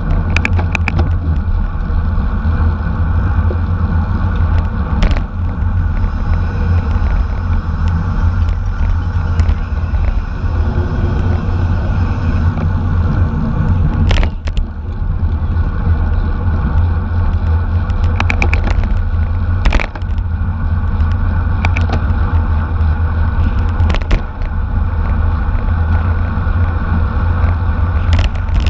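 Steady wind rush and road rumble from a racing bicycle moving at speed, heard on a bike-mounted camera's microphone, with a few sharp clicks or knocks scattered through.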